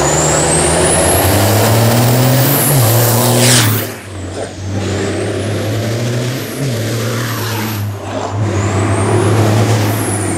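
A 1400 hp MAN race truck's turbodiesel engine running hard under load, with a high turbo whistle sweeping up and down above the engine note. The sound dips briefly twice, about four and eight seconds in.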